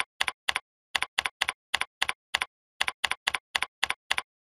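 Computer keyboard typing: a steady run of even keystroke clicks, about six a second, with two brief pauses, as an address is entered.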